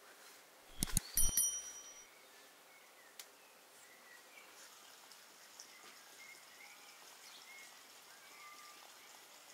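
Quiet rural outdoor ambience with faint, scattered bird chirps. About a second in, a few sharp knocks, the last one followed by a short metallic ring.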